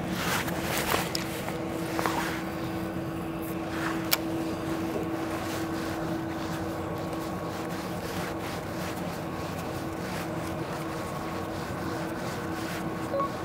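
Boat engine idling steadily, an even hum with a constant tone, with a few light clicks and knocks in the first four seconds.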